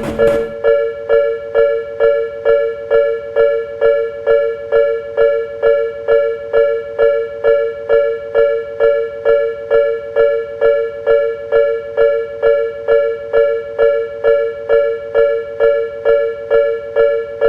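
Japanese railway level-crossing alarm ringing its repeated two-tone "kan-kan" clang, about two strikes a second, steady and even.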